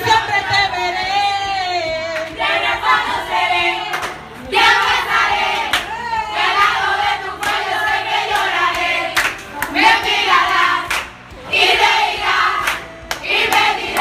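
Group singing, led by a woman's voice, with hands clapping along.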